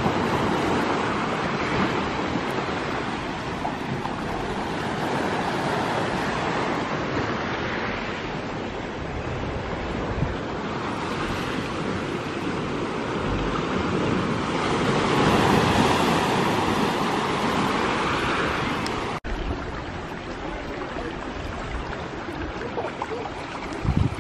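Ocean surf washing in over rocks and a pebble shore, a steady wash that swells louder about two-thirds of the way through, with a split-second break near the end.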